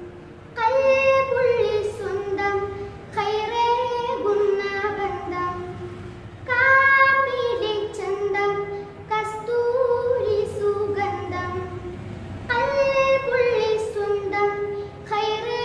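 A boy singing a Malayalam madh, an Islamic devotional praise song, solo in long phrases with short pauses between them.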